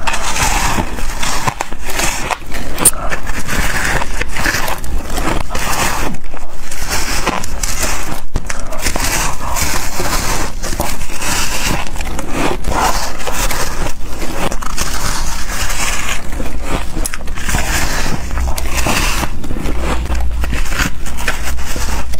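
Loud, crisp crunching as a ring of packed white shaved ice is bitten and chewed, one crackling bite after another with no pauses.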